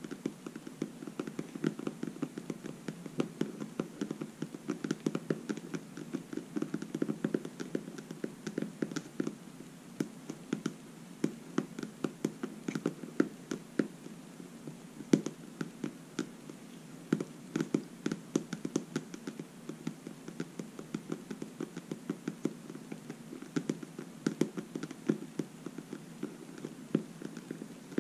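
Long natural fingernails tapping: many quick, irregular clicks, several a second.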